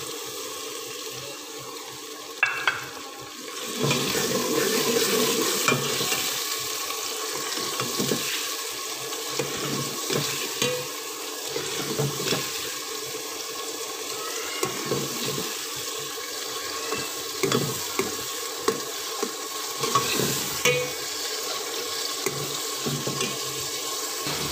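Chopped tomatoes and onions sizzling in hot ghee in an aluminium pot, with a steel ladle stirring and knocking against the pot. The sizzle grows louder about four seconds in, and the ladle gives scattered sharp clicks.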